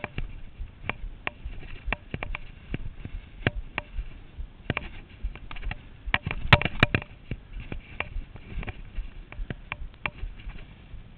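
Ski boots stepping up a packed snow boot-pack: irregular crunches and clicks, with a quick cluster of them about six and a half seconds in.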